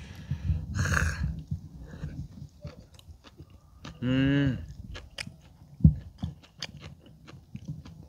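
Close-up chewing of tender boiled pork in a mouth, with wet clicks and soft smacking throughout. There is a breathy exhale about a second in and an appreciative "mmm" hum about four seconds in.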